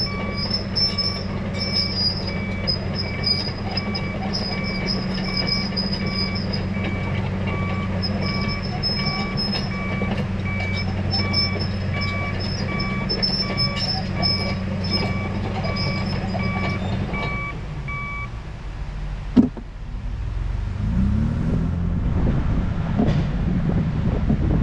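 A vehicle backup alarm beeping over and over at two pitches above a steady low engine idle. The beeping and the idle stop about 18 seconds in. After a single knock, an engine pulls away with its pitch rising twice.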